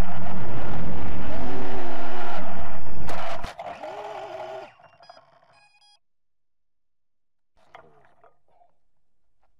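FPV quadcopter's brushless motors and propellers whining loudly, close to the onboard camera, their pitch sliding down and up as the throttle changes. About three seconds in the drone touches down in grass with a knock and the motors cut, a short quieter spin-down follows, then near silence with faint rustles near the end.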